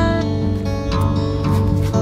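Background music: a plucked guitar tune, with new notes struck near the start and about a second in.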